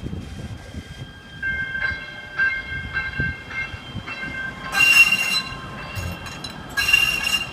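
A light rail train rolls in on curved track, its steel wheels squealing against the rails. High thin squeals come and go, then two loud screeches, about two seconds apart, in the second half.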